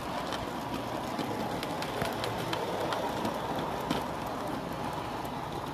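Garden-scale model train running along outdoor track: a steady rumble of wheels on rail with frequent small clicks.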